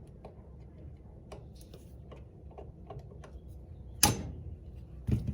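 Thin metal tool clicking and tapping against a car's wing-mirror hinge bracket while its pins are worked out, with many light ticks. A sharp metallic strike comes about four seconds in and another near the end.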